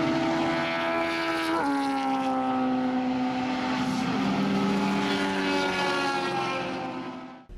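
An engine running at high, steady revs. Its pitch drops suddenly twice, about one and a half and about four seconds in, then sinks slowly and fades out near the end.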